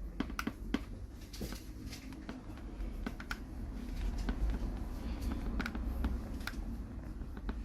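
Light, irregular clicks and taps of a small screwdriver working the two bottom screws of an iPhone 11, over a low steady background hum.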